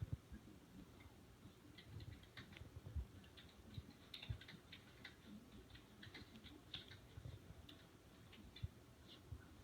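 Faint, irregular light clicks and soft low thumps from a puppy moving about.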